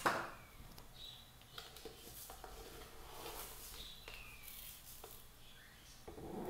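A plastic measuring cup scooping granulated sugar from a plastic canister: a sharp click at the start, then light scrapes and small ticks, and a short rush of sugar pouring into the mixer bowl near the end.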